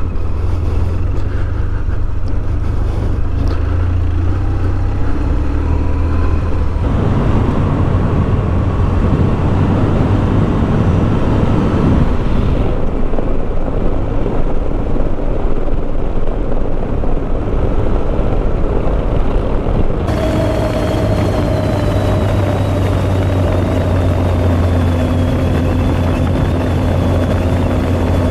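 BMW R1200GS boxer-twin engine running steadily under way on a sandy and gravel track, with tyre and wind noise. The tone of the sound changes abruptly three times, about 7, 13 and 20 seconds in.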